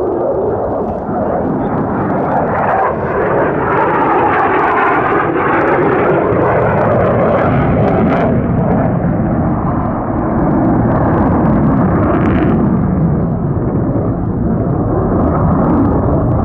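F-35A Lightning II fighter jet's single turbofan engine heard as it flies overhead: loud, continuous jet noise with a hollow tone that sweeps up and down as the aircraft moves across the sky, and sharp crackles through it.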